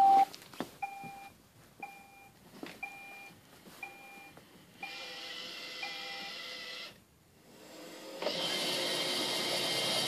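iRobot Roomba robot vacuum beeping six times, short even beeps about a second apart. Its motors then start running with a steady whir about five seconds in, stop briefly near seven seconds, and come back on louder as it starts cleaning.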